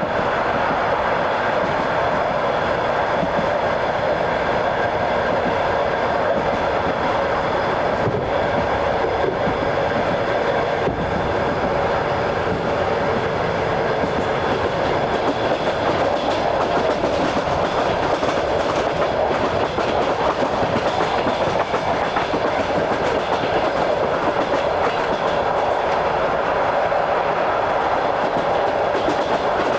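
A train running steadily along the track: a continuous rumble of steel wheels on rails, with the clickety-clack of wheels passing over rail joints.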